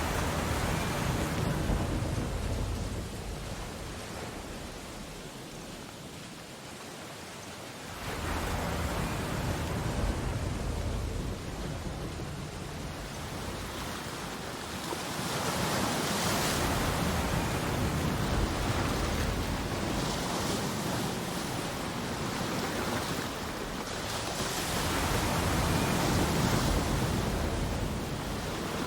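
Ocean waves breaking and washing up the shore, a steady rush that swells and falls back in four long surges, about one every eight seconds.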